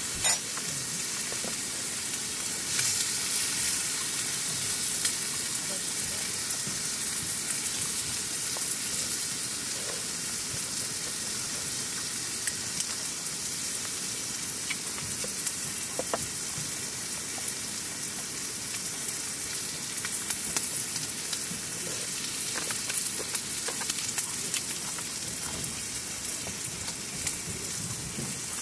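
Food sizzling and frying in a hot pan: a steady hiss with scattered small crackles and occasional louder pops.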